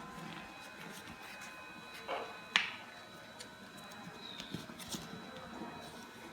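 Craft paper being handled and folded: soft rustles and small crinkles, with one sharp crackle about two and a half seconds in.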